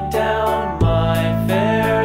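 Background music: sustained chords over a steady bass, changing to a new chord just under a second in.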